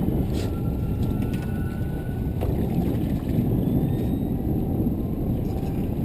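Steady low rumble of a fishing boat underway at trolling speed: its motor running evenly, with wind and water noise on the microphone.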